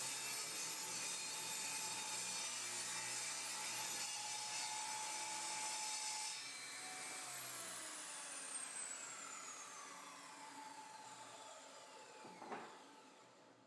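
Contractor table saw running, then switched off about six seconds in and spinning down, its whine falling steadily in pitch as the blade coasts to a stop. A light knock near the end.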